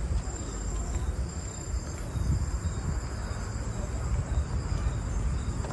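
Night insects chirring in steady, high thin trills, over a louder, uneven low rumble from the microphone as it is carried along on foot.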